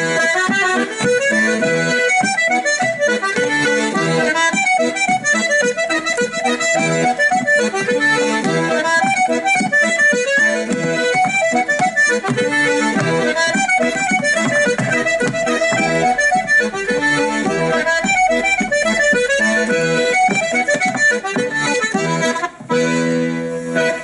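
Accordion playing a lively traditional dance tune in quick, short notes; the music briefly drops out shortly before the end.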